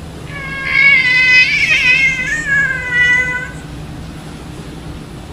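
A cat giving one long, drawn-out meow of about three seconds, its pitch wavering, over a steady low hum.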